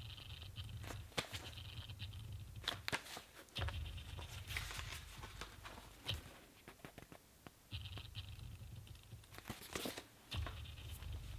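Pages of a paperback manga being flipped and the book handled: soft paper rustles and light taps scattered throughout, over a faint low hum that comes and goes.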